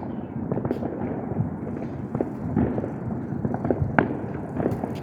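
Fireworks going off: many small irregular pops and crackles, with one sharper crack about four seconds in.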